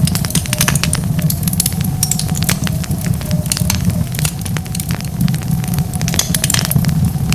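Wood fire crackling, with many sharp irregular pops and snaps over a steady low rumble of the flames.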